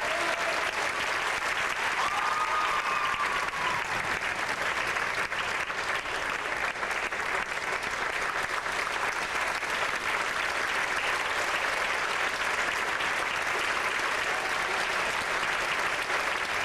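Theatre audience applauding at an opera curtain call: dense, steady clapping from a large crowd.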